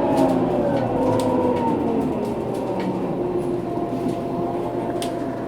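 Scania K230UB bus running with its rear axle differential whining. The whine falls in pitch over the first couple of seconds, then settles into a steadier, higher tone, over the rumble of the Scania DC9 engine and light interior rattles.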